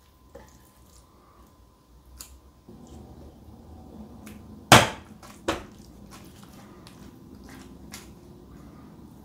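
Spoon scraping and knocking against a pot while spooning soft pumpkin filling into a lasagne dish and spreading it, with scattered clicks; the two loudest sharp knocks come about five seconds in. A faint low steady hum comes in underneath about a third of the way through.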